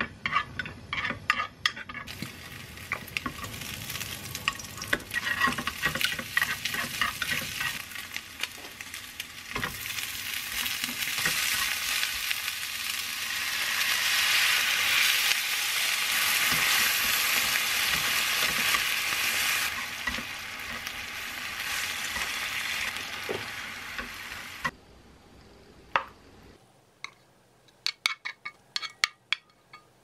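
Diced Spam and sliced onion sizzling as they are stir-fried with wooden chopsticks in a small rectangular frying pan on a portable gas burner, with the chopsticks clicking against the pan. The sizzle grows louder in the middle after a splash of water goes into the hot pan. It cuts off near the end, leaving a few clicks and taps as the food is tipped out.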